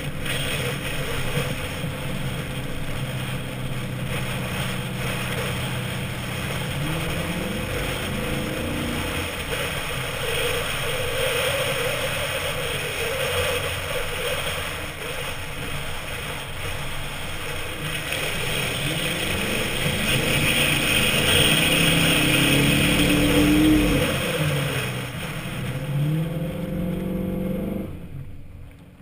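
Chevy Avalanche's V8 with a Flowmaster exhaust, revving up and down under load as the lifted truck drives over soft sand dunes. The revs climb and fall several times, loudest a little past the middle, and the sound drops away sharply near the end.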